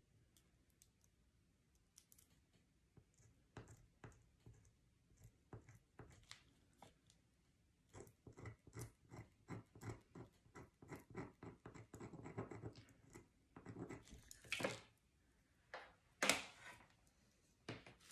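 A handheld craft weeding tool picking and scratching at thin cut vinyl, making faint small clicks and scratches. The ticks speed up to about three a second about halfway through, followed by a few louder crinkling scrapes near the end.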